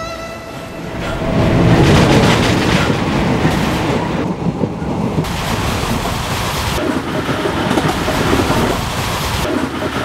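Moving passenger train heard from on board: a steady rumble and clatter of wheels on the rails, swelling up about a second in.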